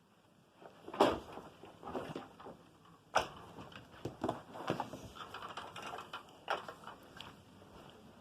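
Irregular knocks, clicks and rustling from a Kirby upright vacuum cleaner and its cord being handled and set up, not running; the sharpest knock comes about a second in and another about three seconds in.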